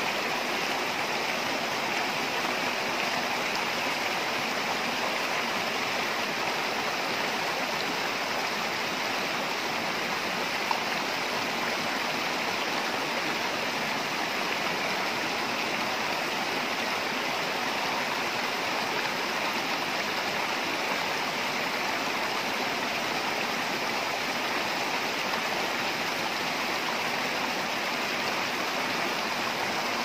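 Small rocky stream rushing and splashing down little cascades, a steady even rush of water, with one brief click about ten seconds in.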